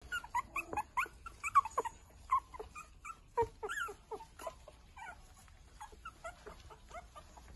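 Eight-week-old Maltipoo puppies wrestling and giving short, high-pitched squeaks and yelps, a quick string of them in the first few seconds that thins out into fainter, sparser calls.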